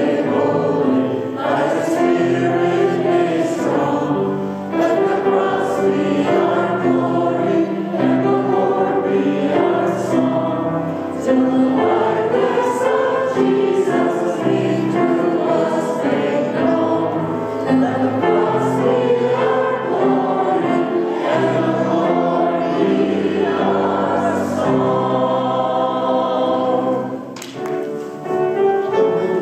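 Church choir singing a hymn with accompaniment: sustained chords, with a brief dip in loudness near the end.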